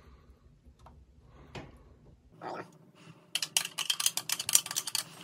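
A utensil scraping and clicking rapidly against a plastic blender cup as thick cottage cheese sauce is worked out of it into a plastic bowl. The clicking starts about three seconds in, after a few faint ticks.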